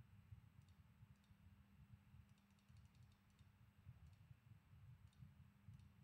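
Near silence: a low hum with a few faint clicks from a computer mouse.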